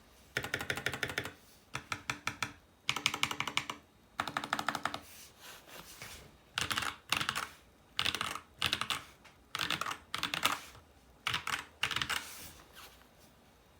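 Mechanical keyboard being typed on: a MageGee Star61 with clone pre-lubed Holy Panda tactile switches, ABS keycaps, tape and case-foam mods. Keystrokes come in fast runs with short pauses for the first five seconds, then in shorter clusters spaced about a second apart.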